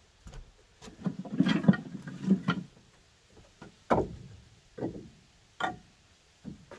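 Split firewood pieces clunking and knocking against each other as they are pulled from a stacked pile and handled: a quick flurry of knocks about a second in, then single knocks roughly once a second.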